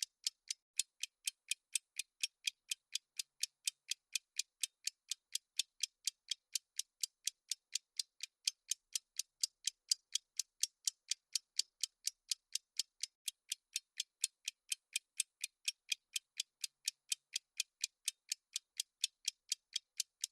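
Clock-ticking sound effect of a countdown timer: sharp, evenly spaced high ticks at about four a second, steady throughout.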